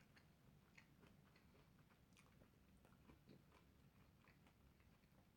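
Faint eating sounds: a mouthful of curry and rice being chewed, with scattered small mouth and spoon clicks.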